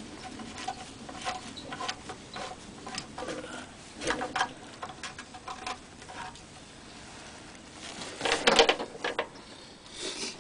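A hand fumbling among parts in a boat's engine compartment, making light clicks and taps while a padded jacket sleeve rustles. There is a louder stretch of rustling and scraping about eight seconds in.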